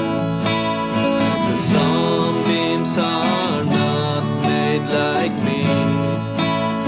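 Two acoustic guitars playing a song together, with a man's voice singing over them from about a second and a half in until about five seconds in.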